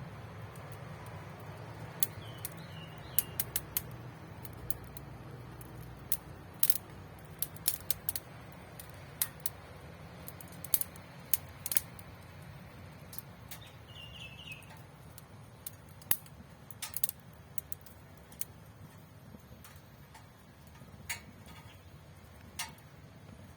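Wood fire crackling in a lightweight twig stove during a test burn: irregular sharp pops and snaps over a low steady rumble.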